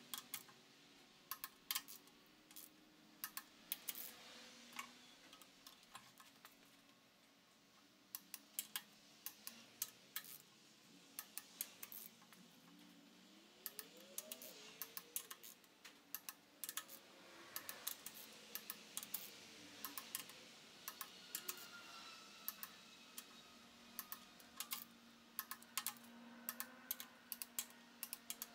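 Ratchet of a long torque wrench clicking in short runs as the cylinder head bolts of a Jeep 4.0 straight-six are tightened in sequence. There are many sharp clicks throughout, separated by brief pauses.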